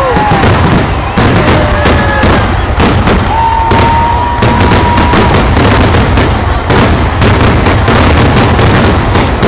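Fireworks grand finale: aerial shells bursting in rapid, unbroken succession, a dense barrage of booms. A long steady whistle sounds through the middle of it.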